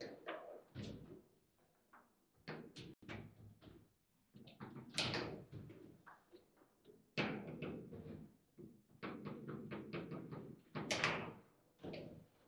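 Table football in play: the ball and the player figures on the rods knock and clack in irregular clusters of sharp hits. The loudest come about five, seven and eleven seconds in, with a quick run of light taps between them.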